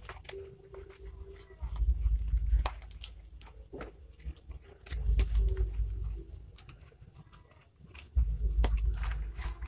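Scissors snipping through packing tape and brown paper wrapping, with paper and plastic crinkling and tearing as the parcel is pulled open; a few sharp snips stand out among the rustling.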